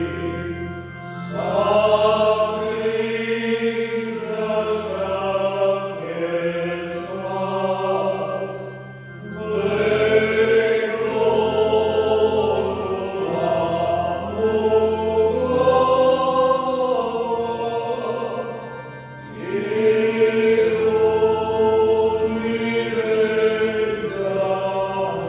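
Communion hymn: slow sung phrases of several seconds each, with short breaks between them, over steady held low accompaniment notes.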